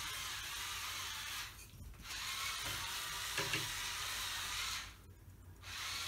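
Hurricane Spin Duster's small battery-powered motor whirring as it spins the duster head, stopping twice for about half a second, once around two seconds in and again near the end.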